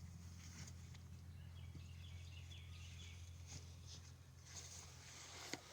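Near silence: a faint steady low hum, with faint high chirping around the middle.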